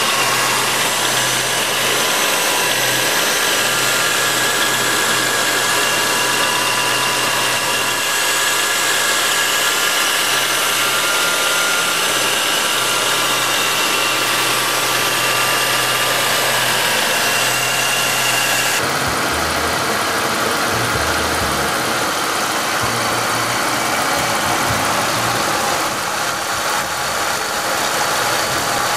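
GM 3100 (3.1 L) V6 in a 1997 Chevy Malibu idling after a cold start, with the knock that the owner puts down as so-called piston slap. About two-thirds of the way through, the sound changes abruptly and a high whine drops out.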